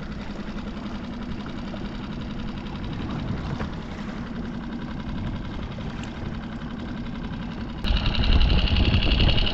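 Small outboard motor of a Solo Skiff running slowly at trolling speed, a steady low hum. About eight seconds in the sound turns suddenly louder, with a deeper rumble and a high steady whine on top.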